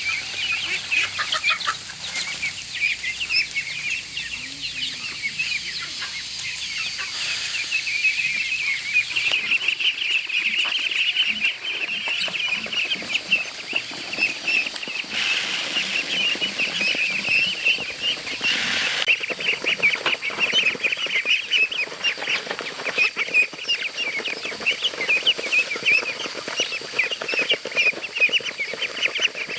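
A brood of baby poultry, chicks and ducklings, peeping all at once in a dense, continuous chorus of short high peeps, with a few short rustles along the way.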